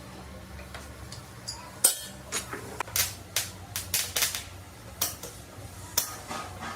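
An irregular run of sharp taps and clinks, about a dozen of them over four seconds, starting about two seconds in, over a steady low hum.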